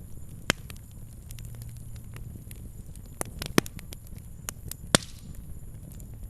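A fire crackling: a low steady rumble of flames with scattered sharp snaps, and three louder pops, about half a second in, past the middle and about five seconds in.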